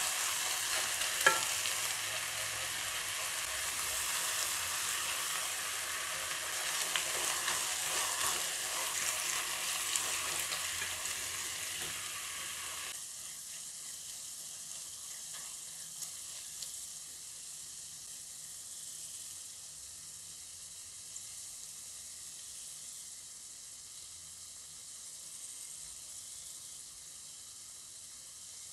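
Sliced brinjal, tomato and onion sizzling in oil in a kadai while being stirred with a spatula, with a few sharp knocks of the spatula against the pan. The sizzle drops suddenly to a quieter level about halfway through.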